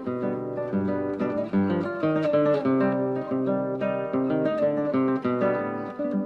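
Background music: acoustic guitar playing a quick run of plucked and strummed notes.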